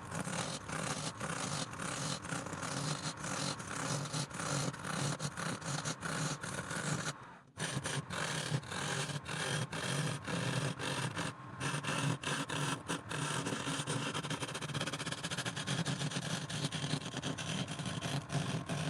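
Wood lathe running with a steady hum while a turning tool scrapes and cuts the spinning wood in a rough, rapid chatter, broken by a brief dropout about seven seconds in.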